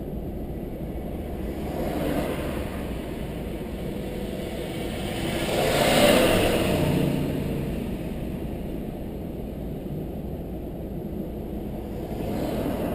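Steady low engine and tyre rumble from a car driving along a road, with other vehicles passing by: the loudest pass rises and falls about six seconds in, with smaller ones about two seconds in and near the end.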